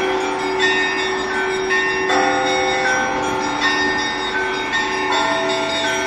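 Russian Orthodox church bells rung in a zvon: several bells of different pitches struck in a repeating pattern, each note ringing on and overlapping the next.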